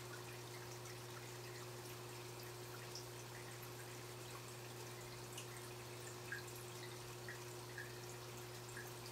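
Aquarium water trickling, with small drips and plinks scattered irregularly, the sharpest about six seconds in, over a steady low hum.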